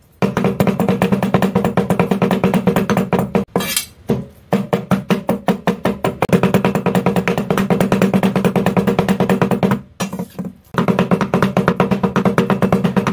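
Cleavers chopping raw bighead carp flesh on a thick wooden chopping board in a fast, steady drumming of about ten strokes a second, mincing the fish into a sticky paste. The chopping stops briefly twice.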